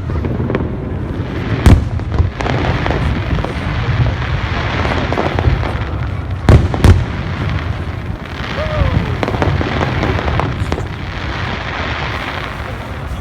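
Aerial firework shells bursting: a sharp bang about two seconds in and two more in quick succession around the middle, over a continuous rumble and crackle of other bursts.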